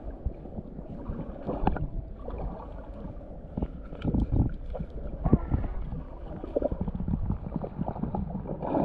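Muffled underwater sound of moving river water picked up by a submerged camera: a low, irregular rumble with scattered knocks and clicks.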